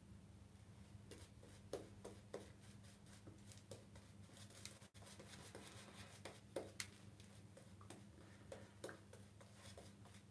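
Faint, irregular swishing and soft clicks of a shaving brush working lather over the face and neck, building the lather for the third pass, over a low steady hum.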